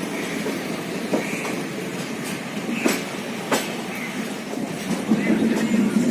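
Indian Railways passenger train running, heard from on board: a steady rumble broken by a few sharp wheel clacks over rail joints, with the rumble growing louder near the end.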